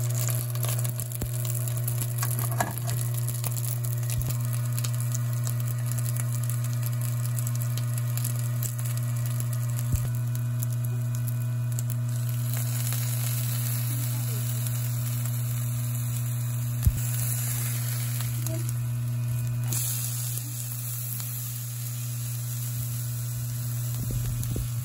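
Rice balls frying in perilla oil over low heat, a steady crackling sizzle from the pan. A steady low hum runs underneath, and a few sharp clicks are heard.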